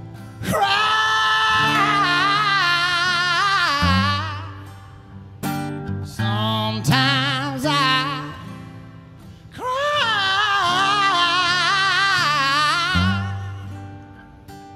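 Male country singer belting long, high held notes with a heavy wavering vibrato over acoustic guitar, in three phrases, the first and last the longest.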